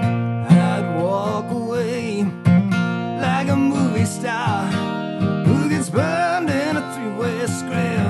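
Acoustic guitar strumming chords, with a sliding, wavering melody line played over it.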